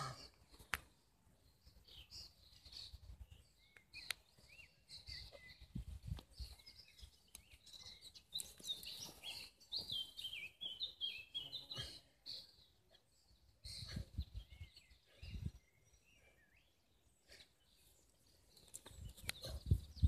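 Small birds chirping in quick runs of short notes, busiest midway. Under them come a few low rustles and bumps from a donkey rolling in dry grass, with another stretch of low rustling near the end as it gets to its feet.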